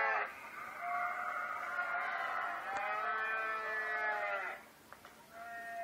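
Cows mooing, played back through a laptop's speakers: one moo trailing off at the start, a long drawn-out moo of about three and a half seconds, and another beginning near the end.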